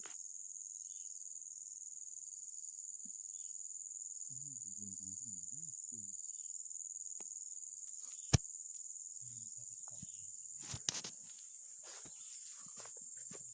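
Steady high-pitched chorus of insects, crickets, droning without a break. A single sharp click sounds about eight seconds in, with faint muffled voices murmuring now and then.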